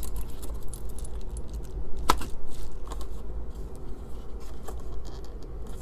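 Handling of drive ribbon cables and connectors on a bench: scattered light clicks and rattles, with one sharper click about two seconds in, over a constant low hum.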